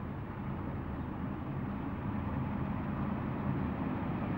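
Sulzer-engined diesel-electric freight locomotives working under load, a steady low engine drone that grows slowly louder as the train approaches.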